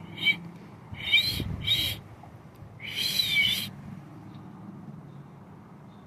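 Four short high-pitched chirping calls, the last one longer at about three seconds in, then only faint outdoor background.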